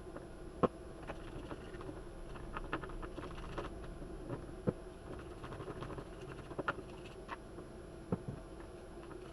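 Scattered light clicks, taps and scraping as dirt is cleaned out of the motor seat inside a Bosch drill's housing, with a few sharper knocks, the first about half a second in.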